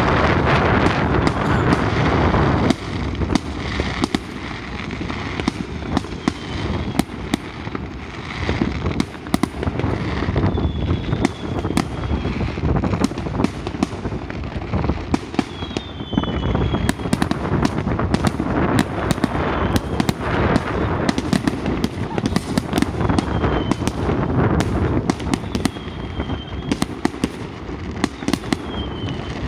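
Aerial fireworks bursting in a steady barrage of bangs and crackle, densest in the first few seconds. Brief high whistles come in every few seconds.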